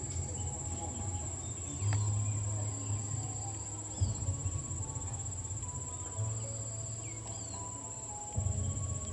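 A steady, high-pitched insect drone runs throughout. A few short high chirps sound over it, and a low rumble swells several times.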